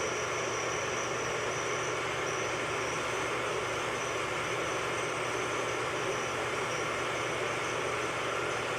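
Metal lathe running steadily, an even mechanical hum and hiss with a steady high whine over it.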